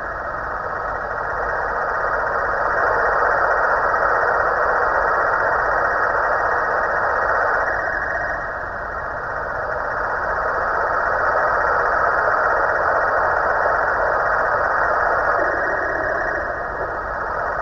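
Snoring from a novelty Halloween pumpkin, swelling and easing in slow breaths about eight seconds apart.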